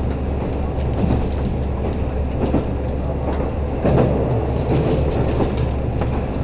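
Inside a KiHa 185-series diesel railcar running at speed: a steady low drone from the engine and wheels on the rail, with scattered clicks and rattles from the track. The sound grows a little louder about four seconds in.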